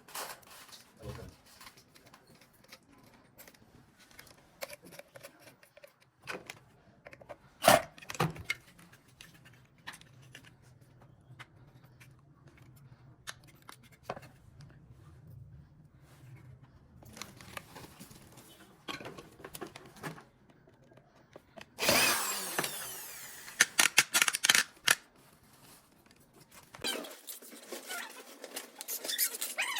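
Workshop assembly sounds: scattered clicks and knocks of parts and tools being handled, with a loud burst from a power tool about three-quarters of the way through.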